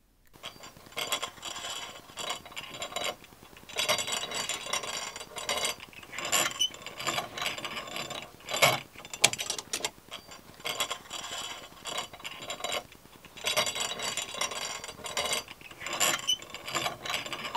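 Mechanical-resistance pedal exerciser being pedalled, its mechanism rattling, clinking and clunking in repeated bursts: the noisy kind, not a whisper-quiet magnetic one.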